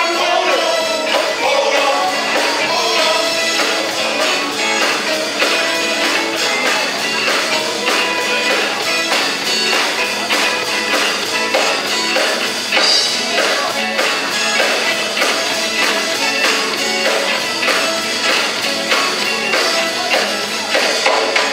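Live gospel band playing in church with electric guitars and drums keeping a steady beat, a man's singing voice heard only at the start before the band carries on instrumentally.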